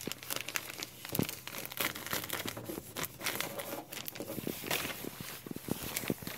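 Thin plastic sheeting crinkling and rustling as it is handled, with irregular sharp crackles.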